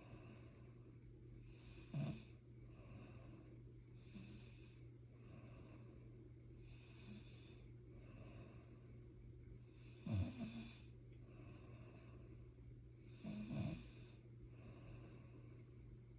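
Soft, rhythmic snoring breaths, about one a second, with louder snorts about two seconds in, around ten seconds and again near thirteen seconds. A steady low hum runs underneath.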